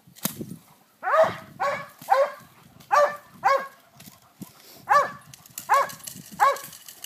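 Dog barking about eight times in quick, sharp barks, often two in close succession, starting about a second in. The dog is held back on its harness and barking at a decoy in a padded bite suit during protection training.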